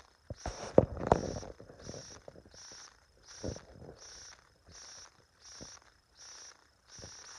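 Insect-like chirping, a short high chirp repeating evenly about every 0.7 s, as in a cricket ambience. A few sharp knocks, the loudest sounds, come in the first second and a half, and another comes about three and a half seconds in.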